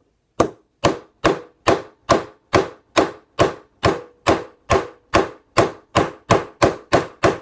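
Brass-headed hammer striking a stubborn pin in a Smith & Wesson M&P Shield 9mm pistol's frame: a steady run of sharp blows, about two to three a second, quickening slightly near the end as the tight pin is driven in slowly.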